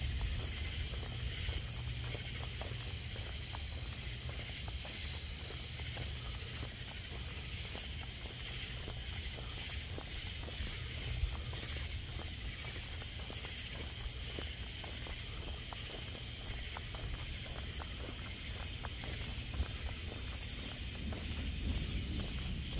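Night chorus of crickets and other insects: a steady, pulsing high trill over a steady low rumble, with scattered faint ticks.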